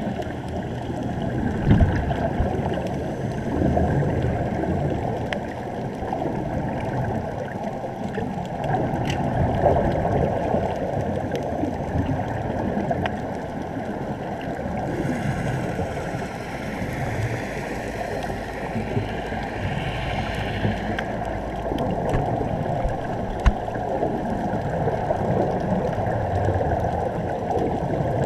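Muffled underwater noise through a waterproof camera housing: a steady wash of water and air bubbles from the diving helmets, with a few short clicks.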